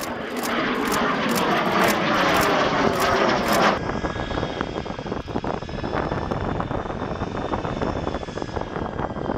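L-39ZA Albatros jet trainer's AI-25TL turbofan: loud rushing jet noise that sweeps as the plane climbs past just after takeoff. About four seconds in it cuts abruptly to the steady whine of an L-39ZA taxiing at low power.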